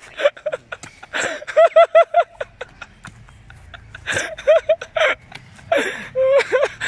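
A person laughing in quick runs of 'ha-ha-ha', twice, with scuffs and clicks of feet on dry leaves and bare ground.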